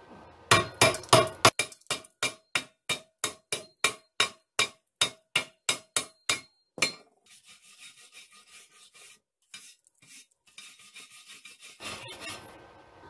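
Chipping hammer striking slag off a freshly laid stick-weld bead on steel plate: a run of sharp metallic blows, about three a second, for some six seconds. The blows are followed by fainter, sparser taps and scrapes.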